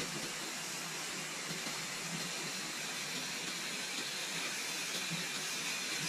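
Steady rushing hiss of a waterfall, even and unbroken.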